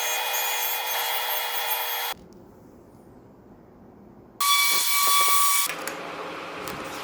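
Woodworking power tools running in short cut-together clips. A tool whines steadily for about two seconds and cuts off abruptly. After a quieter stretch, another tool runs loudly with a higher whine for about a second, then gives way to a quieter steady hum with a few light knocks.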